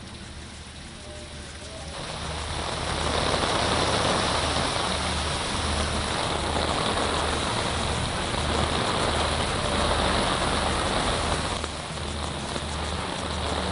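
Heavy rain and traffic on a waterlogged road: a steady hiss of rain and tyre spray mixed with car engines. It grows louder about two seconds in, over a low, regular pulsing.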